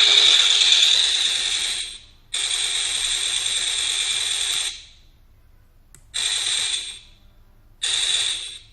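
Electronic machine-gun sound effect from a sound-effect module, played through speakers in rattling bursts: two long bursts of about two seconds each, then two short ones.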